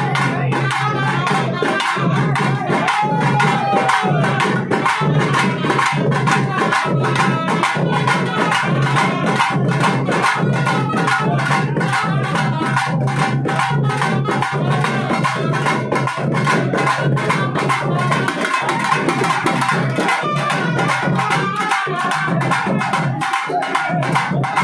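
Temple-festival procession music for a kavadi dance: fast, steady drum strokes with a wavering melody line over them.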